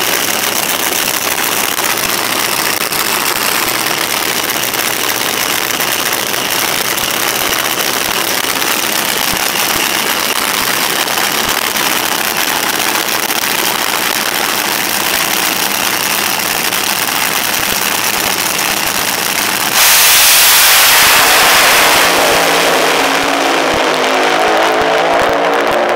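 Front-engine supercharged Top Fuel dragster's nitro-burning engine running loud and steady at the start line, then launching about twenty seconds in with a blast of full throttle lasting about two seconds. The sound then falls away as the car runs off down the strip.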